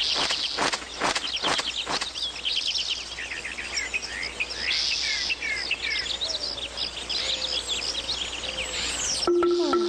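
Birdsong ambience: many small birds chirping and twittering in quick short calls, with a few sharp ticks in the first two seconds. A few notes of music come in near the end.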